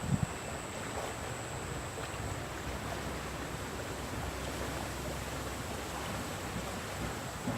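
Steady rushing of a fast-flowing, muddy river current, an even noise with no distinct events.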